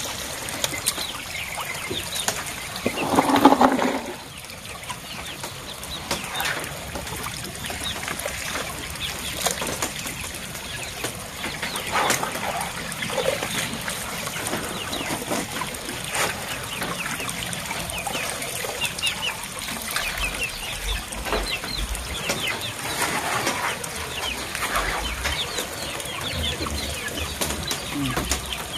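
Poultry clucking near the pond edge, loudest about three seconds in. Water splashes and drips as fish fry are scooped out of a net into a plastic basin.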